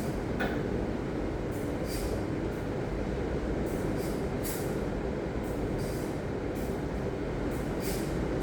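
Ocean surf: a steady roar of waves, with short high hissy crackles recurring every second or so.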